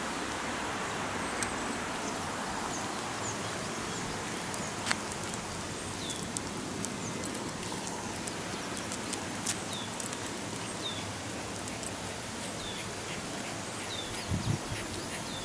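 Outdoor rural ambience: a bird repeats a short falling chirp about once a second over a steady background hiss. There are a few low thumps near the end.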